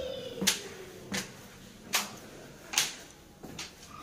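Footsteps of shoes on a hard stone floor or steps indoors, four sharp steps at an even walking pace about three-quarters of a second apart.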